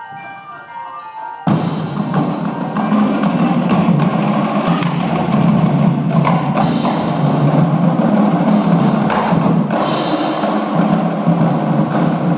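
Drumline percussion ensemble playing: pitched mallet keyboard notes, then about a second and a half in the battery of drums and cymbals comes in loud and plays on densely, with a couple of sharp accented hits.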